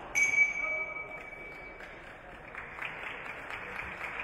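A boxing-ring bell struck once, ringing at one steady pitch and fading over about a second and a half, signalling the end of the round. Applause and clapping from the crowd follow from about halfway through.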